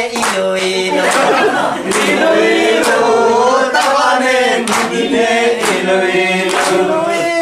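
A group of voices singing together without instruments, with a sharp beat roughly every second.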